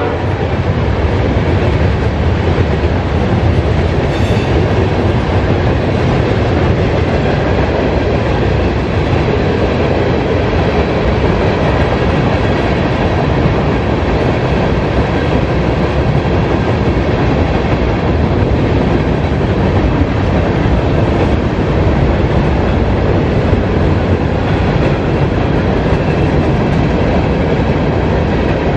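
Freight train cars, tank cars and covered hoppers, rolling past with a steady rumble of steel wheels on the rails.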